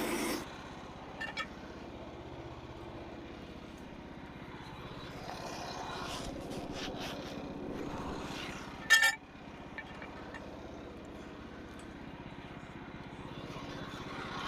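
Small engine of a Frontier OS27 portable band sawmill running steadily. It drops to a lower, quieter note about half a second in, and there is one sharp clank about nine seconds in.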